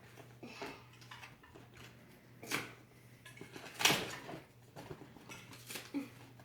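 Small toys and a container being handled: rustling and scraping with a few sharp clacks, the loudest about four seconds in.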